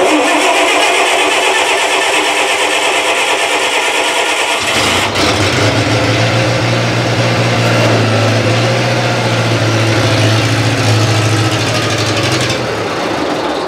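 A 1970s Bobcat 610 skid steer's gasoline engine being cold-started: the starter cranks it for about four and a half seconds, then the engine catches with a sharp pop and runs. The sound dies down near the end.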